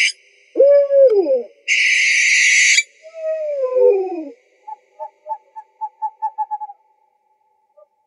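Owl calls: a pitched hoot about half a second in that rises and then drops, a loud harsh hissing screech lasting about a second, a long falling hoot, then a run of short quick notes at about five a second.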